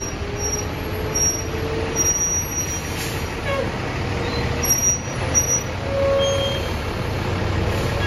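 Large tour bus's engine running with a low rumble as it rolls slowly past, with several short squeals, typical of its brakes, breaking in and out.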